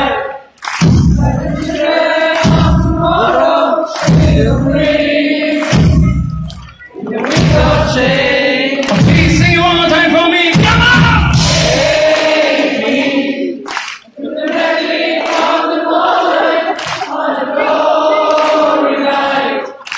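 Live rock ballad played by a band, with a large arena crowd singing along in chorus, heard from among the audience.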